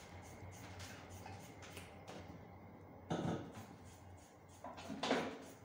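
Hairdressing scissors snipping through a thick bunch of long straight hair: a run of quick, small crunching snips, with two louder sounds, about three seconds in and near the end.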